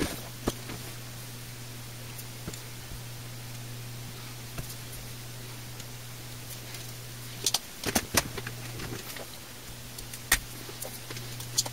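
A steady low electrical hum with scattered sharp clicks and taps of tools on a circuit board while it is being desoldered. The clicks come singly near the start, in a quick cluster of three or four past the middle, and once more sharply near the end.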